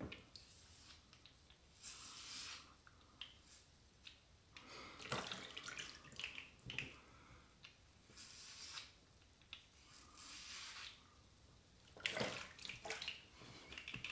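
HeadBlade S4 Moto razor scraping through shave gel and stubble on a scalp: a series of short, faint strokes with pauses between them, the longest cluster near the end.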